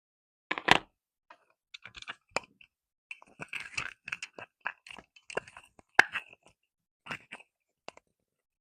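Small plastic slime jars being handled and set down on a wooden surface: irregular clicks, taps and crackles, with a sharper knock near the start and another about six seconds in.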